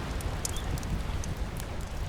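Layered rain-and-surf ambience: a steady rush of rain over a low rumble of sea waves, with scattered short pops of a crackling wood fire.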